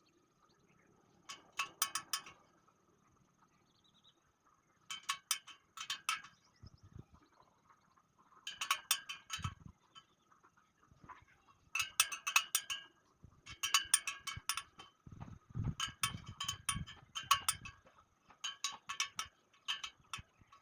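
Steel wire spokes clinking and rattling against each other and the wheel parts, in short bursts of quick metallic clicks every couple of seconds, with a few dull knocks in the second half.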